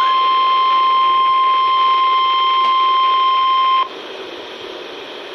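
NOAA Weather Radio 1050 Hz warning alarm tone, heard through a weather radio receiver's speaker as one steady high-pitched tone. It cuts off abruptly about four seconds in, leaving quieter radio hiss before the warning is read.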